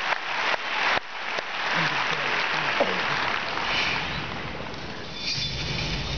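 Arena crowd applauding between points of a tennis match, with sharp nearby claps at first, then the applause fading away over the following seconds amid scattered voices.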